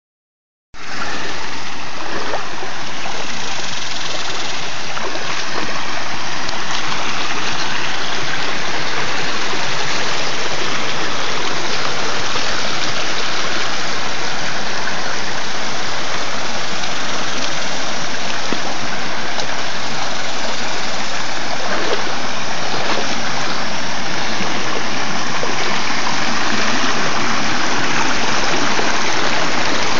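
Shallow creek water running over flat rock ledges and riffles: a steady rushing babble that starts about a second in and holds level.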